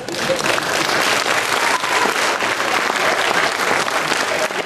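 An audience applauding: many hands clapping together, breaking out all at once and keeping up steadily.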